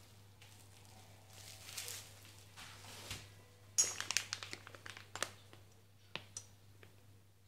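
Plastic parts bag being handled, crinkling and rustling. A run of sharp crackles and clicks comes about four to five seconds in.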